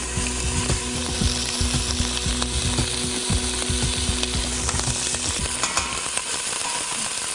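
Beef fillet pieces sizzling as they fry in a little oil in a stainless steel pot, with the clicks and scrapes of a spatula moving them about.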